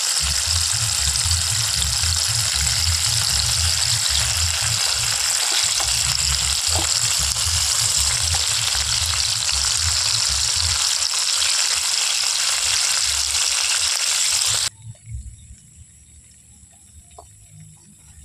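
Pomfret fish sizzling as they fry in hot oil in a pan: a steady, loud frying hiss that cuts off abruptly about fifteen seconds in.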